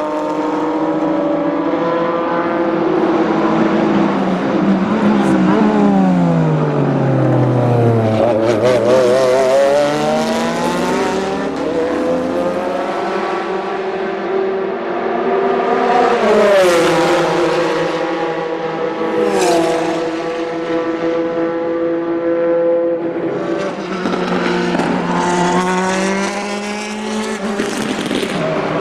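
Porsche 996 GT3 RSR's naturally aspirated flat-six racing engine under way. The note falls steadily for several seconds as the car slows, wavers at low revs, then climbs again. It holds a steady high pitch through the middle and dips and rises once more near the end.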